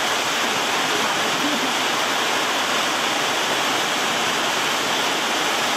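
Rain falling steadily, an even hiss with no distinct drops or breaks.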